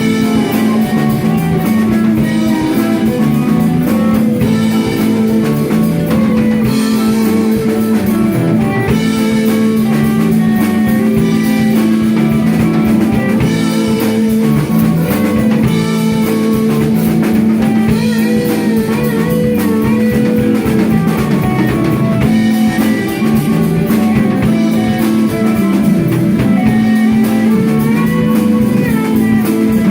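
Rock band playing an instrumental blues-rock piece: guitar melody lines over drum kit, with a steady held note underneath.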